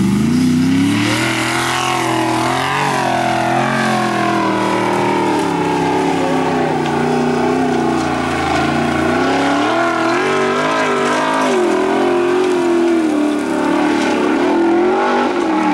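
A Formula Offroad buggy's engine revving hard and continuously. Its pitch climbs in the first second, then rises and falls over and over as the throttle is worked.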